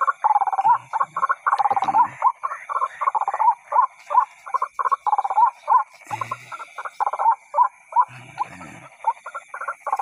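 White-breasted waterhen (ruak-ruak) calls played from a battery-powered bird caller: a steady run of short repeated notes, about three a second, without a break.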